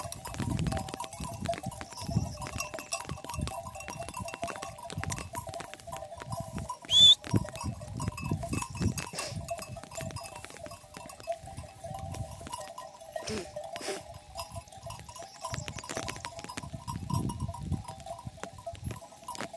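A flock of grazing sheep bleating steadily, with many small clicks. About seven seconds in there is one short, loud, high-pitched sound rising in pitch.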